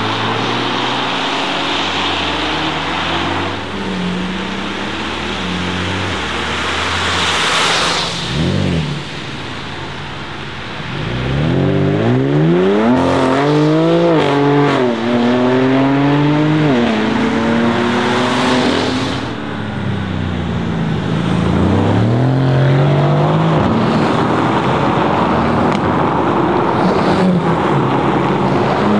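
Porsche 718 Cayman GT4 RS's 4.0-litre naturally aspirated flat-six accelerating hard. The revs climb and drop back several times in quick succession through upshifts, after a lower, steadier stretch of engine sound with a brief rushing pass-by.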